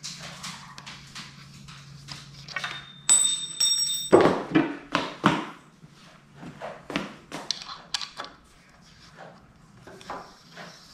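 Irregular knocks, clunks and taps as a wooden dowel is fitted and twisted into a garment rack's frame, with a brief metallic ring about three seconds in.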